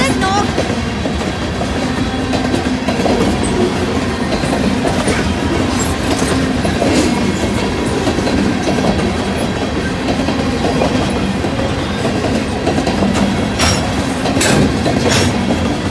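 Freight train rolling past, with a steady heavy rumble and wheels clacking over the rail joints, and a few sharper clacks near the end.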